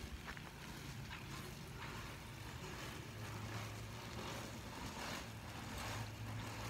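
Water from a garden hose spraying and pattering down on a trampoline mat, a steady hiss with faint drips, over a faint low steady hum.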